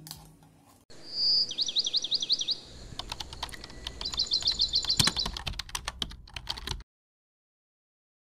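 Birdsong of rapid, repeated chirping trills in two bursts, mixed with a run of keyboard typing clicks. It cuts to dead silence shortly before the end.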